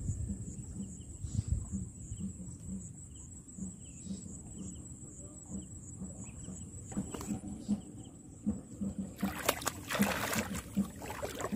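A fish thrashing and splashing in the shallows at the riverbank as it is pulled in on a line, for a second or two near the end, over a steady high insect buzz.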